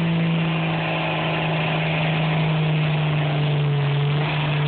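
Turbocharged 5.9 L 24-valve Cummins inline-six diesel with a P7100 injection pump, in a 1998 Dodge Ram 2500, running at high, steady revs under load while hitched to a pulling sled. The pitch sags slightly near the end.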